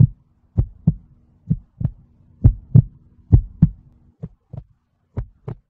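Heartbeat, a steady lub-dub of paired low thumps about a third of a second apart, repeating a little under once a second. A faint steady hum runs under the first part, and the beats grow fainter in the last second and a half.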